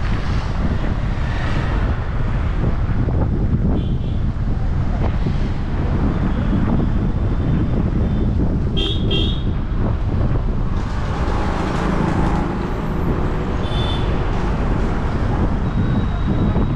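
Car driving on a hill road: steady engine and road noise. Short horn toots come about nine and again about fourteen seconds in.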